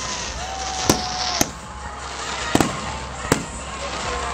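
Aerial firework shells bursting overhead: five sharp bangs, two of them almost together in the middle, over a constant hiss.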